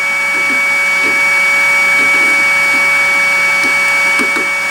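Hot air rework gun blowing steadily, a constant rush of air with a steady high whine, while it heats a motherboard CPU socket to melt the solder for desoldering.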